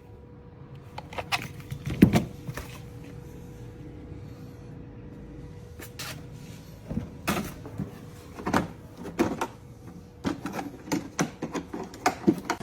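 Irregular clicks and knocks, as of small household objects being handled, over a faint steady hum; the loudest knock comes about two seconds in.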